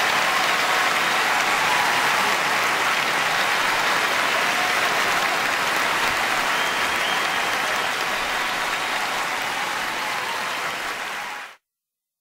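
Large theatre audience applauding, a dense steady clapping that eases slightly and then cuts off abruptly near the end.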